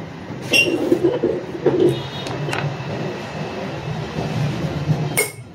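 Handling noise as a motorcycle wheel hub and a chisel are moved on a concrete floor: a sharp click, then a few dull knocks and scrapes over the next second, and another click near the end, over a steady low hum.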